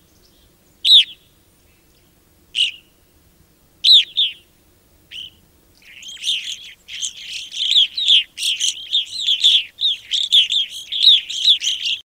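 Evening grosbeaks calling: a few single clear, downslurred call notes spaced a second or more apart, then from about six seconds a rapid run of overlapping calls that carries on to the end.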